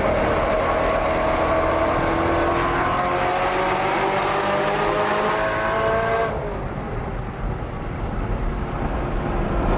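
BMW E92 M3's 4.0-litre V8 through an aftermarket titanium exhaust, pulling hard with its pitch climbing steadily through a gear. About six seconds in the throttle snaps shut and the sound drops to a quieter, lower drone as the car coasts, building again near the end.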